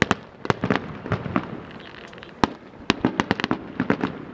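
Fireworks display: aerial shells bursting in a rapid, irregular run of sharp bangs and cracks, a dozen or more, thickest about three seconds in.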